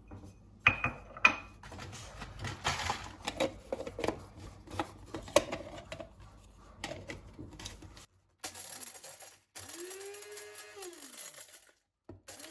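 Irregular small clicks and rattles of whole cloves being handled, then an electric spice grinder pulsed about ten seconds in. Its motor whine rises, holds for about a second and winds down as it grinds the cloves.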